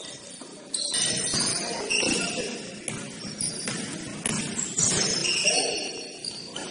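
Basketball game play: sneakers squealing in short high chirps on the court floor, with a few sharp knocks of the ball bouncing.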